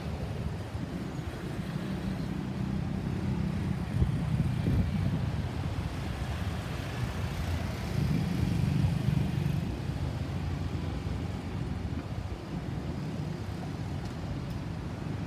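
Road traffic: motor vehicles running and passing with a steady low rumble of engines and tyres.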